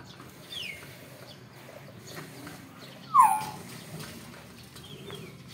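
Nias hill myna calling: a few short whistles that slide down in pitch, the loudest a sharp downward-gliding call about three seconds in, with fainter ones before and after.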